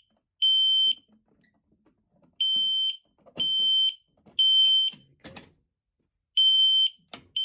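System Sensor L-series P2RL horn strobe sounding the temporal-3 evacuation pattern on its high 3 kHz tone at its low-volume setting: groups of three half-second beeps with a pause after each group. A couple of short clunks of handling fall in the pauses, about five and seven seconds in.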